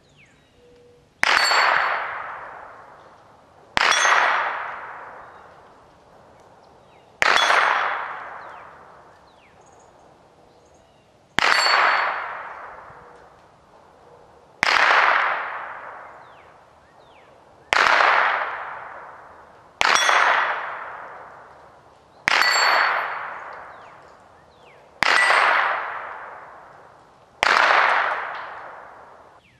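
Hanging 8-inch steel plate targets ringing as .22 rimfire bullets strike them at 110 yards: ten sharp clangs a few seconds apart, each ring dying away over about two seconds.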